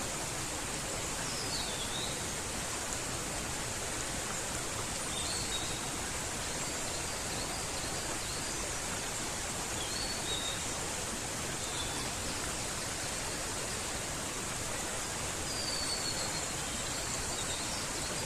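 Mountain stream rushing steadily, with several short bird calls heard faintly over the water.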